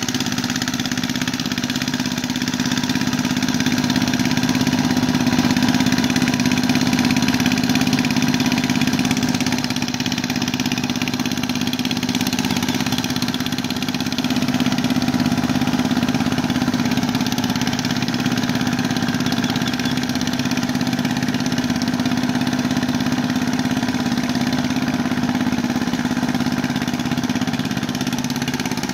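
Small engine of a hand tractor (mud boat tiller) running steadily at an even speed while tilling a flooded paddy, a constant engine hum with no breaks.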